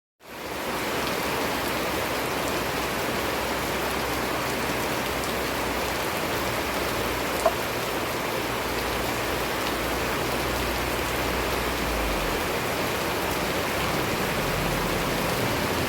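Steady rain falling, an even hiss of many drops, with one sharp tick about halfway through.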